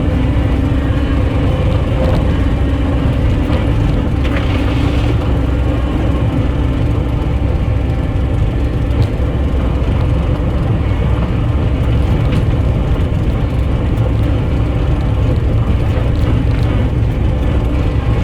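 Skid steer engine running steadily during a ride, heard from on board the machine, with a few brief knocks.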